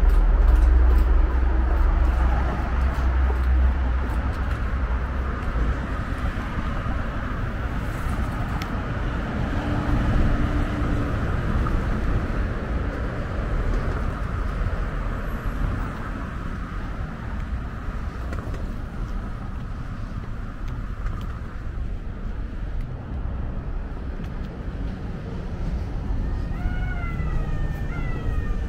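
Steady road-traffic noise from passing cars, with a heavy low rumble in the first few seconds. A few short high squeaks come near the end.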